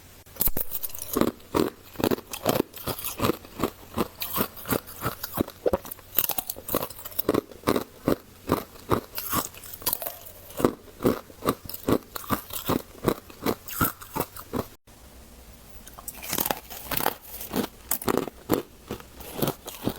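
Close-miked crunching and chewing of freezer frost: a rapid run of crisp, icy bites and chews, with a brief break about fifteen seconds in.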